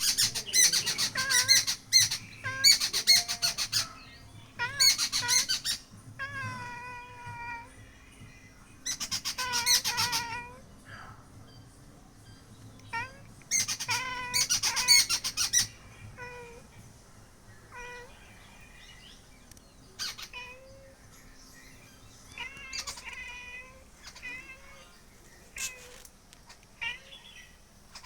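Small birds singing: about five loud bursts of rapid trilling chatter in the first half, with downward-bending calls in between, then fainter scattered chirps.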